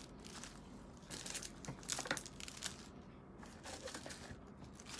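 Small clear plastic bag crinkling and rustling as it is handled, with some rummaging in a cardboard box. Irregular faint crackles, a little louder about two seconds in.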